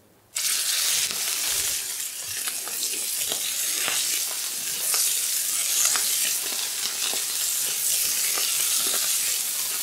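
Lamb fillets searing in hot olive oil in a frying pan: sizzling that starts suddenly as the first fillet goes in, with fat crackling and spitting throughout.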